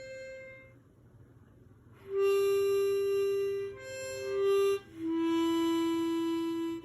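Music: a held note fades out, and after about a second's pause a slow melody of a few long held notes on a single instrument begins.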